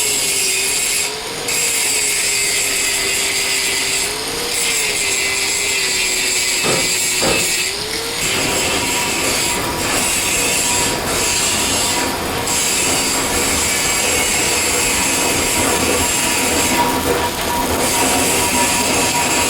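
Welding arc on a pipe-to-flange joint: a steady high hiss that breaks off briefly several times as the arc is stopped and restarted.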